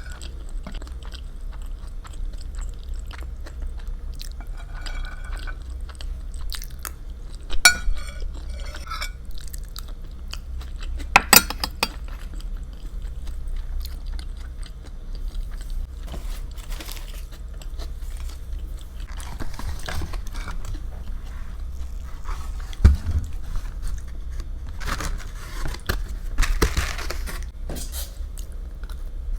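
Close-miked eating sounds: a person chewing and biting food, with a few sharp clicks of cutlery or dishes.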